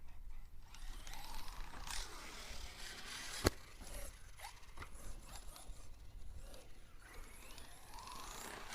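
Arrma Mojave 1/7-scale RC buggy's brushless electric motor whining up and down in pitch as it is driven, with a crunchy, ratcheting grind from a stripped differential. A single sharp knock about three and a half seconds in.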